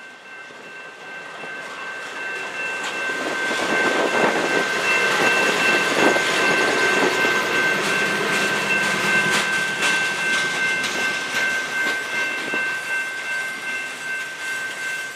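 Boxcars of a freight train rolling past, wheels clicking over the rail joints under a steady rumble, with a thin high whine held throughout. The noise swells over the first few seconds and slowly eases off toward the end.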